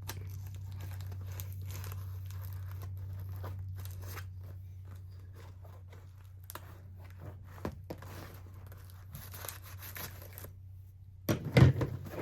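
Packing tape being peeled and torn off a cardboard box, with irregular ripping and crinkling, over a steady low hum. A few louder sharp knocks come near the end.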